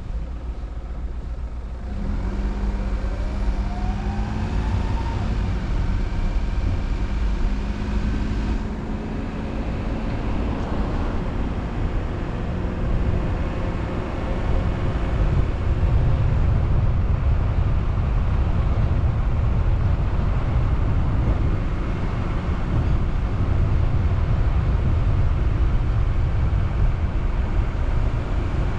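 Car driving: engine and tyre noise on the road, with the engine pitch rising as it speeds up a couple of seconds in. The road noise grows louder about halfway through.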